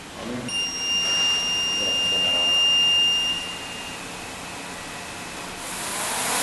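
A steady high-pitched beep lasting about three seconds, then near the end a small electric quadcopter's motors and propellers start spinning up in a rising whir.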